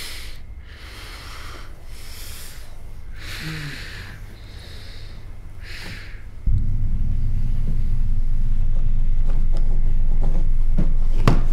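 Heavy, hissing breaths through the nose of a man gagged with tape, about six in a row. About six and a half seconds in, a loud, steady low rumble cuts in suddenly and holds, and a sharp click comes near the end.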